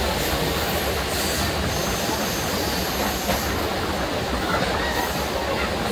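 Indian Railways express train running over the rails, heard from on board with the view open to the outside: a steady rumble of wheels and coaches on the track.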